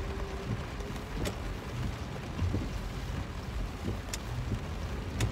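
Steady low rumble of a car heard from inside the cabin, with rain on the car adding an even hiss and a few sharp ticks.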